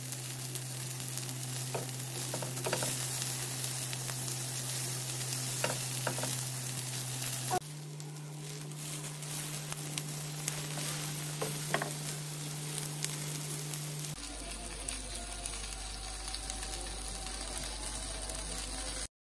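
Chicken tikka sizzling as it cooks, a steady hiss with scattered small pops and crackles, over a steady low hum. The sound changes abruptly twice and then cuts off just before the end.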